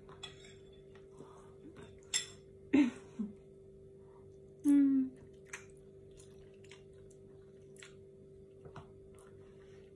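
A woman eating a big forkful of noodles: slurping and chewing, with a short hummed 'mmm' about five seconds in, the loudest moment.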